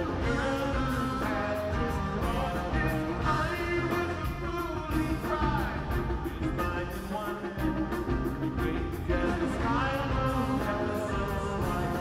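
Rock band playing live in a large hall, with drums, guitar and a singing voice over a steady beat with regular cymbal hits.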